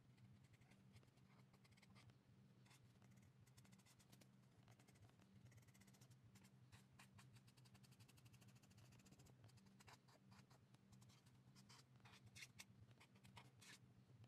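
Ohuhu alcohol marker's felt tip stroking across sketchbook paper in many faint, quick strokes, thickest in rapid runs midway and near the end, over a low steady hum.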